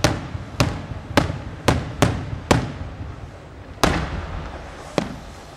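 Daytime aerial firework shells bursting overhead in a run of sharp bangs: six in the first two and a half seconds, then two more about a second apart, each trailing off in a short echo.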